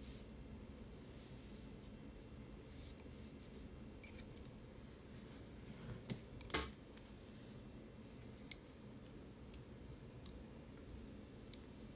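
Faint handling of chunky yarn and wooden double-pointed knitting needles, with a few light clicks and taps as the needles knock together. The loudest is a short crackle about six and a half seconds in, followed by a sharp click about two seconds later.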